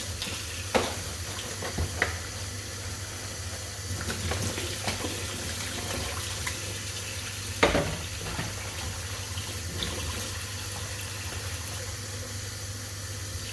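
Kitchen tap running steadily into the sink, with a few sharp knocks of things handled in the sink, the loudest about two thirds of the way through.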